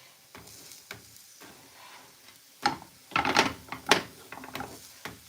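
Kitchen utensils and pots clinking and knocking while cooking: a few light clicks, then a cluster of louder clattering hits about three to four seconds in.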